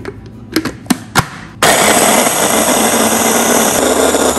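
A few plastic clicks as the lid and motor top of an electric food chopper are fitted. About a second and a half in, the motor starts and runs loudly, its blade chopping garlic, ginger, green chillies, onion and herbs.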